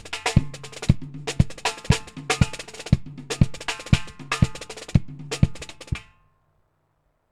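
Drum-led music with a steady kick-and-snare beat, about two beats a second, over a low bass note. It stops abruptly about six seconds in, leaving silence.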